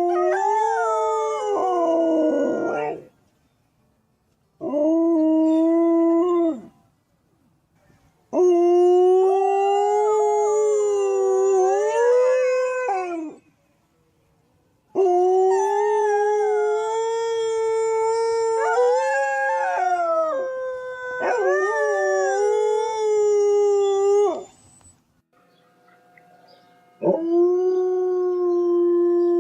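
Dogs howling: five long, mostly steady howls with short pauses between them, the longest lasting about nine seconds, with two voices overlapping in it.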